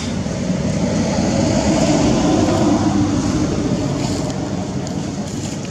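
Motor vehicle passing, its steady running noise swelling to a peak about two seconds in and slowly fading.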